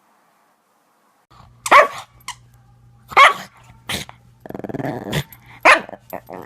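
A dog barking sharply and repeatedly, starting a little over a second in, with a low growl between barks about halfway through.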